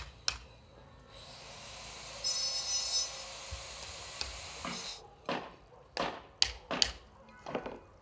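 A steady hiss that swells for about a second, followed from about five seconds in by a run of sharp, irregularly spaced knocks, like wood being struck.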